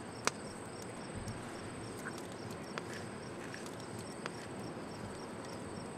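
Crickets chirping steadily in a night-time outdoor ambience, over a low even hiss. A sharp click sounds just after the start, with a few fainter clicks later.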